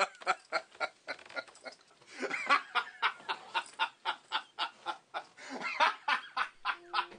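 A man laughing hard in three long bouts of quick ha-ha pulses, about five a second. Steady music notes come in near the end.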